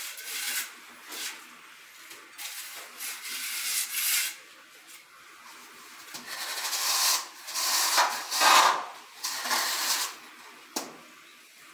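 Metal screed bar being dragged back and forth across a bed of wet sand-and-cement subfloor mortar to level it: a run of irregular gritty scraping strokes, loudest between about seven and nine seconds in.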